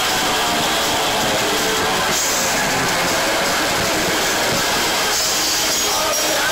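Punk rock band playing live at full volume, electric guitars and drums, picked up by an overloaded phone microphone so it comes through as a dense, steady, distorted noise.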